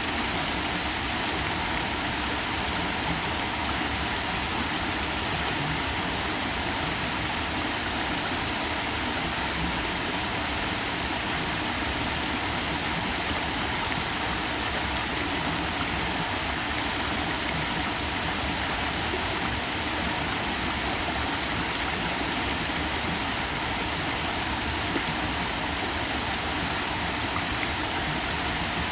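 Small waterfall spilling over stepped rock ledges into a shallow stream pool: a steady, even rush of falling water.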